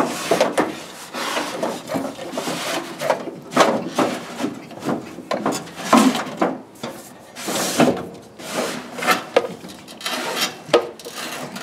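Rubber vacuum hose with an electrical wire taped to it being pulled through a car's fender well, rubbing and scraping against the body panels in a string of short, irregular strokes.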